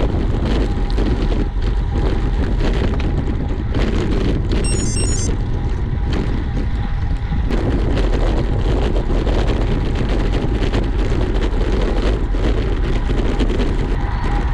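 Steady heavy wind rush buffeting a camera microphone while riding a road bike at speed.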